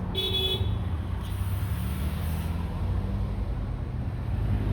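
Steady low hum of a motor vehicle engine running, with a brief high-pitched tone about a tenth of a second in.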